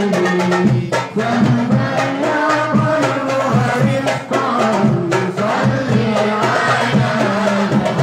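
Hadroh ensemble playing: hand-struck frame drums (rebana) beating a steady rhythm under voices singing an Arabic devotional song (sholawat).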